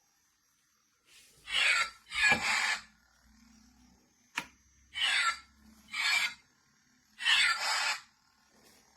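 Toy lightsaber's built-in sound module playing swing effects: five short whooshes, each about half a second long, with one sharp click a little after halfway.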